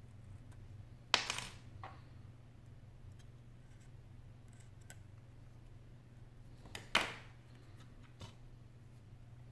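Two sharp metallic clinks with a short ring, about a second in and again about seven seconds in, as small metal pieces are set down on the hard work surface; a fainter click comes close to each.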